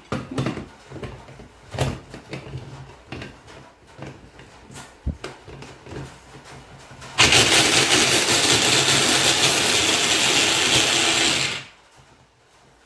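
Plastic clicks and knocks as the motor head of an electric mini chopper is seated on its bowl, then about seven seconds in the chopper runs loudly and steadily for about four seconds, chopping carrot pieces, and stops abruptly.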